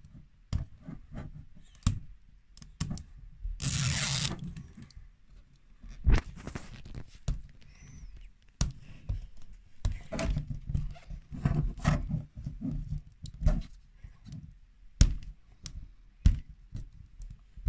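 Hands handling a plastic toy capsule ball, with scattered clicks, knocks and rustles as its sealing band is picked at and peeled off. About four seconds in comes a longer, louder rasp.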